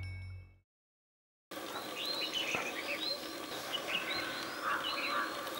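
Music fading out, a second of silence, then outdoor birdsong: several birds giving short, repeated chirping calls over a steady background.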